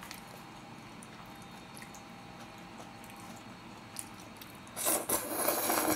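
A light click, then about five seconds in a loud slurp of black-bean-sauce noodles lasting about a second.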